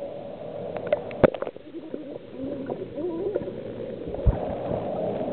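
Swimming-pool water sloshing and gurgling around a swimmer, with a few sharp clicks about a second in.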